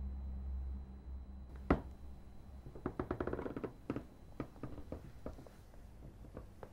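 A door being handled: one sharp knock, then a quick run of clicking rattles like a latch being worked, and a few more single knocks. A low drone fades away before the first knock.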